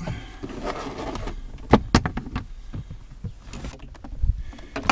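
Hard plastic dash trim being handled: the knee bolster panel rattles and scrapes as it comes free of its snap clips, with two sharp clicks a little under two seconds in and a few more knocks near the end.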